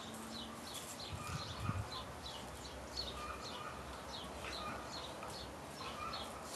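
A bird chirping over and over, about two short falling chirps a second, with soft thumps and scuffles from two dogs wrestling on a stone terrace.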